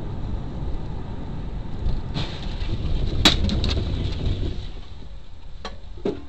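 Steady road and engine rumble inside a moving car's cabin, with one sharp knock about three seconds in and a few lighter clicks near the end.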